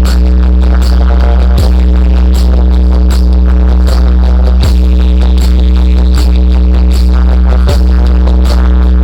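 Music played very loud through a DJ sound system during a sound check: a heavy, steady bass drone with a falling bass hit about every three seconds.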